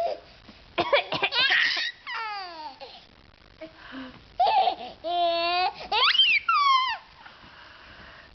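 Baby laughing in several bursts of high squeals whose pitch slides down and up, then stopping about seven seconds in.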